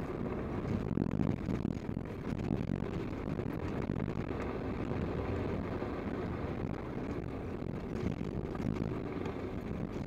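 Toyota Land Cruiser driving on a gravel dirt road, heard from inside the cab: a steady low rumble of engine and tyre noise.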